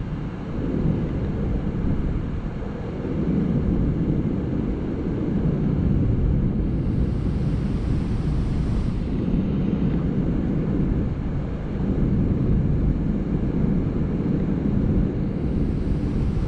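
Wind buffeting the microphone in a steady low rumble, over the rush of water at a dam spillway.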